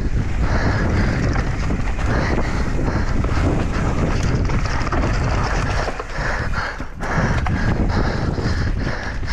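Wind buffeting the microphone over the rattle and knocks of a mountain bike riding fast down a rough dirt trail. The noise dips briefly twice, around six and seven seconds in.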